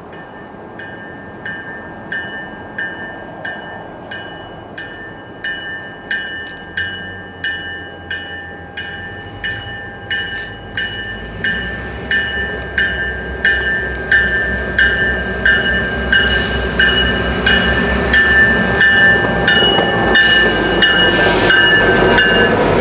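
Ontario Northland diesel locomotives approaching with their bell ringing steadily, about three strokes every two seconds, louder as they near. From about halfway the low engine rumble builds, and the locomotives pass close by at the end.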